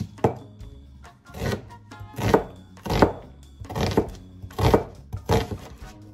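Chef's knife slicing through a red onion on a cutting board: about seven strokes a little under a second apart, each a short cut ending in a knock of the blade on the board.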